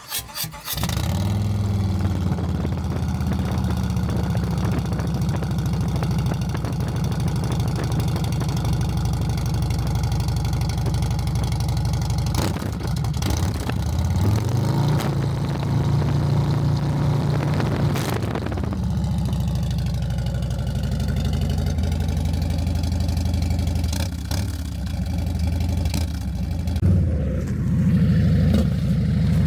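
Harley-Davidson Street Glide's V-twin cranking and catching through a new Sawicki mid-length exhaust, then idling. About halfway through the engine is revved and held at a higher speed for about four seconds before dropping back to idle, and it swells briefly again near the end.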